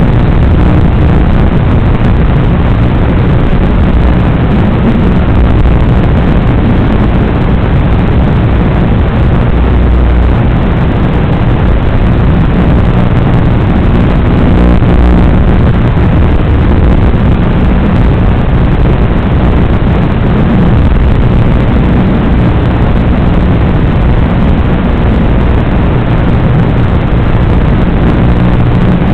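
Onboard sound of an RC Formula 1 car driving hard around a carpet track: a loud, steady mix of drivetrain and rolling noise picked up by the car's own small microphone, with no clear rises or falls.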